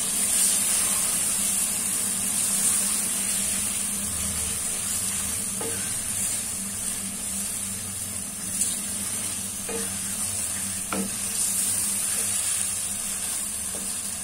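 Chicken pieces sizzling as they fry in spice masala in a karahi, while being stirred, with a few short knocks of the spoon against the pan.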